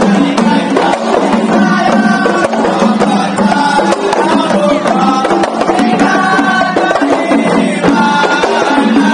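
A kompang troupe beating hand-held frame drums in a fast, dense interlocking rhythm, with men's voices singing along in chorus.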